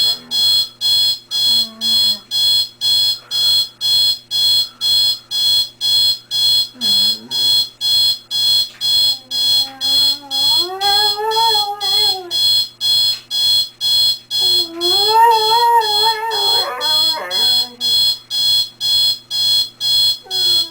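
Alarm clock beeping steadily at about two high beeps a second while a dog howls along, a few short whines early on and two longer howls that rise and fall in pitch around the middle and about three-quarters of the way in.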